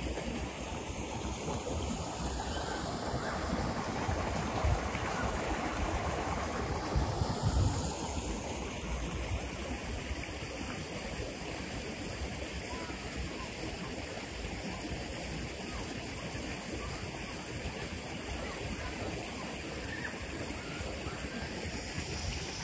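Steady rush of river water flowing over rocky shallows.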